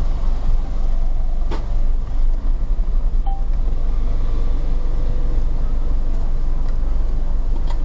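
Steady low rumble of cabin noise inside a white Hyundai Santa Fe, with a single sharp click about a second and a half in.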